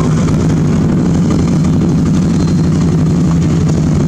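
Open-wheeled racing car's engine running steadily at low revs as the car drives slowly away, with no revving.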